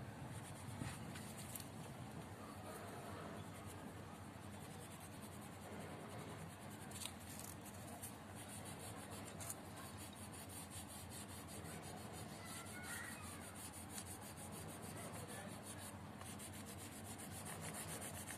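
Light blue coloured pencil shading on paper: quick back-and-forth strokes making a faint, steady scratchy rub.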